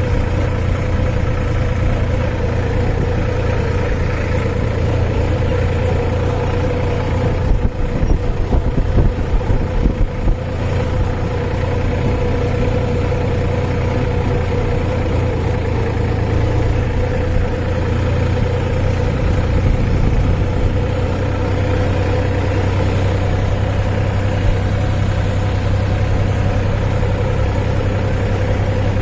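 Tractor engine running steadily with a deep, even hum, turning briefly uneven and choppy about eight seconds in before settling back.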